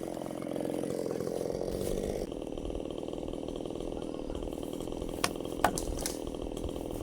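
Two-stroke chainsaw engine running steadily, easing off a little about two seconds in, with two sharp clicks near the end.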